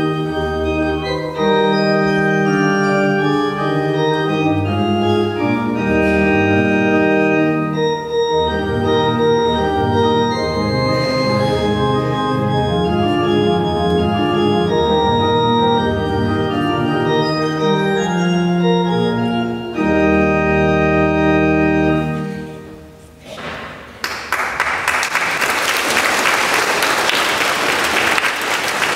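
Trumpet with church organ accompaniment playing a slow piece of long held notes, ending about 23 seconds in; then the audience applauds.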